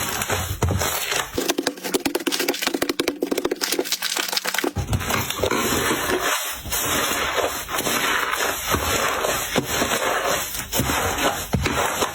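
Slime being squeezed and worked by hand, making dense crackling and popping. From about a second in until nearly five seconds in it changes to a fast run of sharp clicks.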